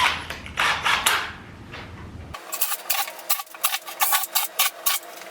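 A drill bit boring out pilot holes in plywood to 5/16 inch: two short bursts of rasping wood, then a quick run of sharp clicks and taps.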